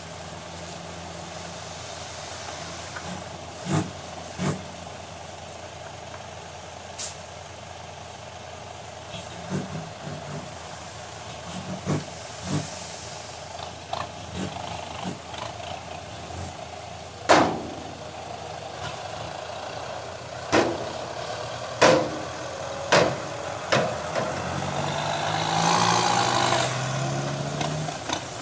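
Dump truck's engine running steadily while its raised bed tips out a load of soil, with sharp bangs every few seconds, the loudest about halfway through. Near the end a tractor's engine grows louder and takes over.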